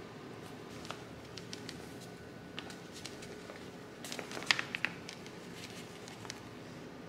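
Flour poured into a wooden bowl of soft green dough, with light ticks and pattering and a short cluster of them about four seconds in, over a faint steady hum. Earlier, a few scattered ticks from a chopstick working the dough against the bowl.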